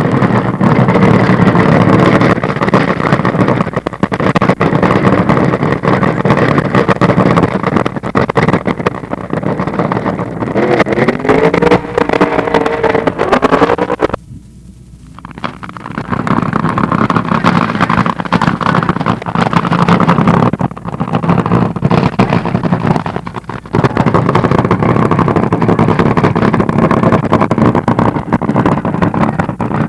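Drag-racing car engines running loud at full throttle, in long stretches broken by short drops, with some rising and falling pitch near the middle.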